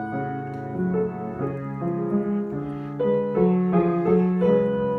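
Piano playing a slow, singing melody over sustained chords, each new note or chord struck about every half-second and left to ring.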